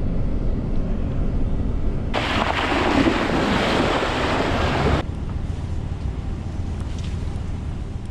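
Wind buffeting the microphone, a steady rumbling noise, with a louder rushing hiss for about three seconds in the middle; it begins to fade out near the end.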